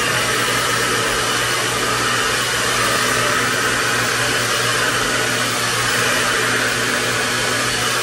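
Pattern Beauty blow dryer running continuously, a steady rush of air with a low hum underneath.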